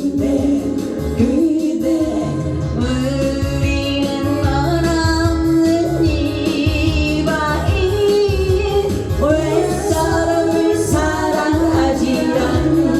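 Band music: a song with a held, gliding melodic line over bass and a steady drum beat.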